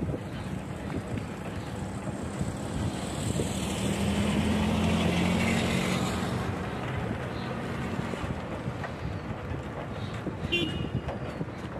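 Road travel: a vehicle's engine running steadily with wind noise on the microphone. A car passes close by and draws ahead, with the sound swelling about four to six seconds in.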